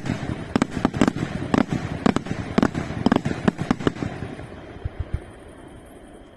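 Display fireworks going off in a rapid, uneven volley of sharp bangs over a steady rumble; after about four seconds the bangs thin out and the sound fades.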